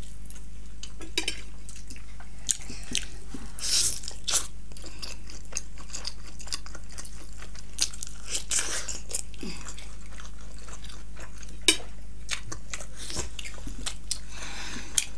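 Close-miked eating: crunchy bites into crispy fried chicken lollipop and chewing, with irregular sharp crackles and mouth clicks that are loudest about 4 and 8.5 seconds in, over a steady low hum.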